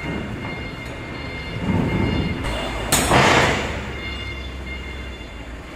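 Steel shipping-container door hardware being forced: a rumbling scrape just under two seconds in, then a louder sudden clank with a grinding scrape about three seconds in as the locking bar is pulled, over a steady low hum.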